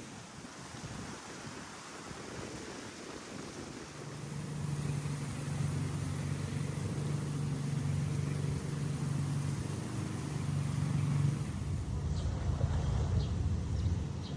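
Motor vehicle engine running steadily under wind noise, its hum growing louder about four seconds in.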